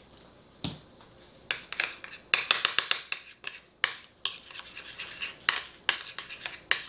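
Utensil scraping and clicking around a small dish while stirring honey mustard sauce together. A single click about half a second in, then quick irregular strokes from about a second and a half on.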